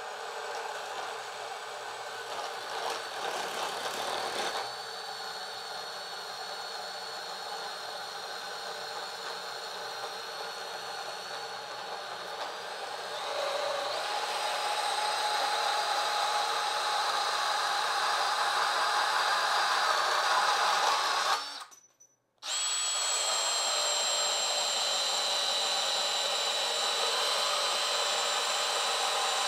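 DeWALT ATOMIC 20V MAX brushless compact bandsaw (DCS377) running with a steady motor whine. It gets louder about 13 seconds in, cuts out for about a second near 22 seconds, then runs on steadily.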